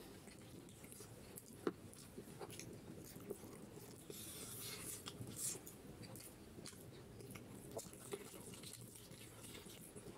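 Close-miked chewing and biting of beef head curry eaten by hand: small wet mouth clicks and smacks throughout. There is one sharp click about a second and a half in and a hissing stretch near the middle.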